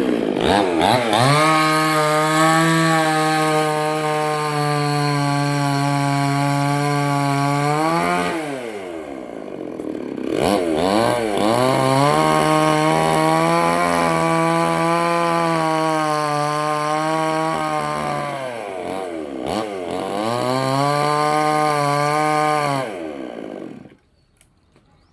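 Two-stroke chainsaw cutting through a coconut tree trunk at full throttle in two long stretches. It drops back briefly about 8 and 19 seconds in, and the engine stops near the end.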